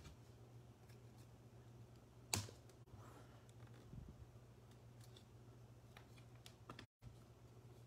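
Near silence with a low steady hum: football trading cards being handled and set down on a playmat, giving one sharp click about two and a half seconds in and a few faint taps after it.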